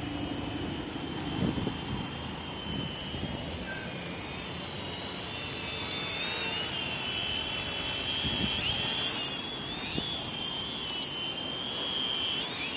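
Syma X25 Pro quadcopter's four motors and propellers whining as it holds a hover. The high pitch wavers and shifts slightly as the motors correct against the wind.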